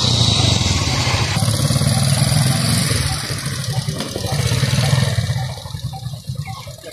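Small motorcycle engine running at low speed as it is ridden slowly through a cone slalom, its note easing off and picking up again and growing weaker near the end as the bike moves away.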